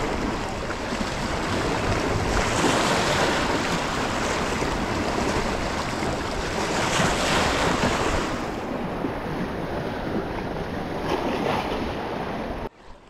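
Waves washing against the rocks of a jetty, swelling twice, with wind buffeting the microphone. The sound cuts off suddenly near the end.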